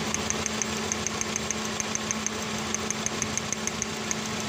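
Taxi's engine idling steadily, with a quick, even ticking about six times a second. One of its ignition coils is getting no power, which the mechanic takes for the fault behind the check-engine light and the car's lack of pull.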